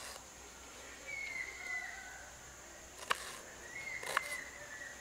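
Knife cutting through a red onion onto a wooden cutting board: two sharp knocks about a second apart, the second of them near the end. A bird whistles twice, once about a second in and again as the knocks fall, over a steady high buzz of insects.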